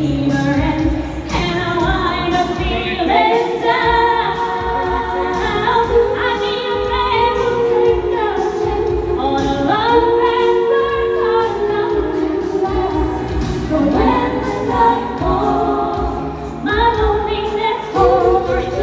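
A woman singing live through a handheld microphone and PA, holding long notes over amplified backing music with a steady beat.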